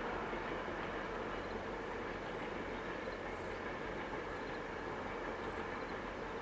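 VIA Rail Canadian passenger cars rolling past, a steady rolling noise of steel wheels on rail with no distinct clicks or knocks.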